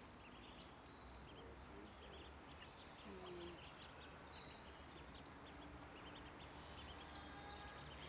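Faint high-pitched peeping of eastern spot-billed duck ducklings: many short peeps, scattered irregularly, over a low steady background hum.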